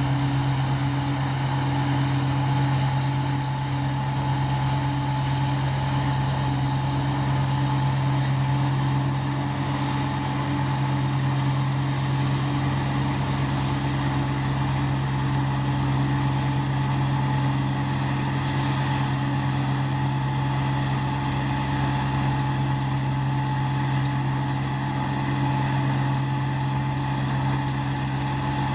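ISEKI combine harvester working a rice field: a steady, unchanging engine drone with a thin steady whine above it.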